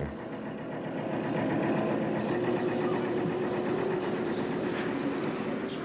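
Boat engine running steadily, a continuous hum with a faint held tone.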